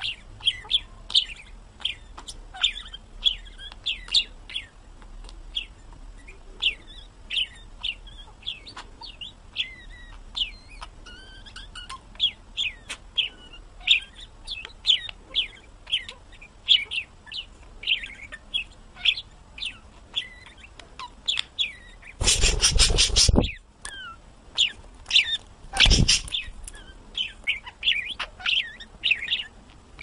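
Budgerigar chattering: a fast, continuous warble of short chirps and squeaks. Twice near the end it is drowned by brief loud rustling, the first about a second long and the second shorter.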